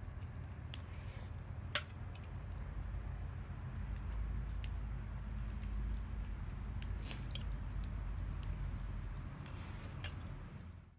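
Low steady outdoor rumble with a few faint scattered clicks and one sharp clink about two seconds in; it fades out at the end.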